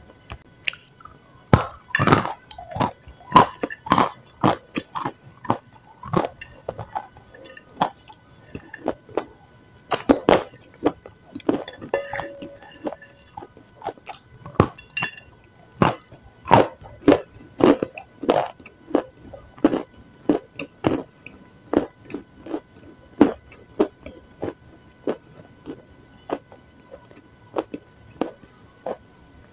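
Close-miked biting and chewing of a white food, with sharp crunches coming more than once a second.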